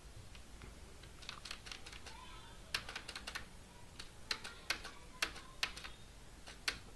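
Computer keyboard keys clicking: about a dozen irregular presses, scrolling a terminal page down line by line.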